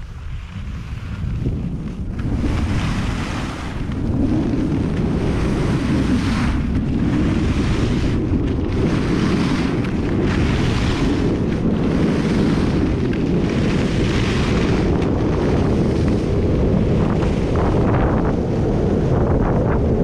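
Wind buffeting the camera microphone during a fast downhill run on groomed snow, growing louder over the first few seconds as speed builds, with a hiss of edges on the snow swelling and fading about once every second or two through the turns.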